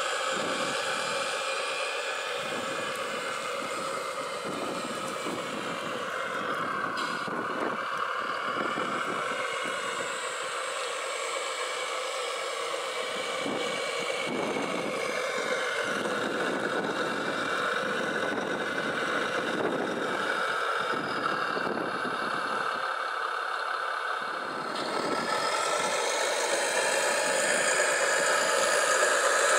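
Electric motors of radio-controlled model construction machines whining and whirring, the pitch shifting as they work, growing louder near the end.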